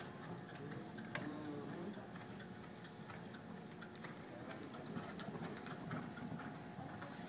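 Quiet indoor arena ambience: a steady faint hum with scattered light clicks and ticks.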